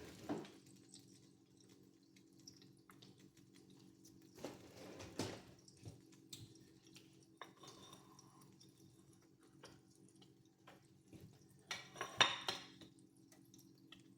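Kitchen utensils and dishes clinking and knocking during food preparation, scattered light clicks with a louder clatter about twelve seconds in, over a steady low hum.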